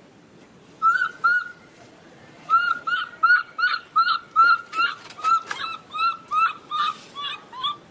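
Baby macaque crying: two short squeaky calls about a second in, then a steady run of the same short calls at about three a second, the distress cries of a frightened infant.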